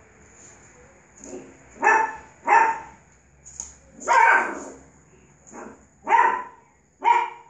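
Puppy barking in play: a series of short, high yapping barks starting about a second in, uneven in loudness, with one longer bark about four seconds in.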